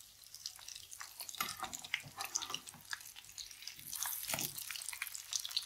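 Frozen chicken shami kabab patties shallow-frying in ghee, the fat crackling and popping steadily, with a louder burst of sizzle about four seconds in as a patty is turned over.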